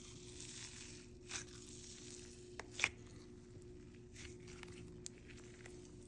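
Green jelly slime topped with perlite being handled and squished, giving faint crinkling and crunching with a few sharp pops, the loudest about three seconds in.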